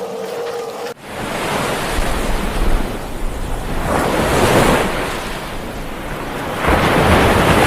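Surf: waves washing in, a rushing noise that swells and eases three times. It follows a held animal call that breaks off about a second in.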